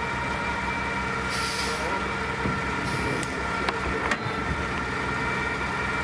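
A large engine running steadily with an even low throb, with two short hisses of air about a second and a half and three seconds in, and a couple of sharp clicks near four seconds.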